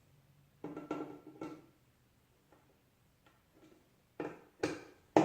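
Knocks and clicks of a screwdriver and workstation parts being handled: a short cluster about a second in, then three sharper knocks near the end, each louder than the last.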